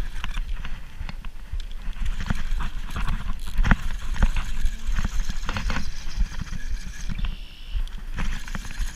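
A spinning reel cranked in quick, uneven clicks while a hooked carp is fought, mixed with clothing rubbing against a body-worn camera and a low wind rumble.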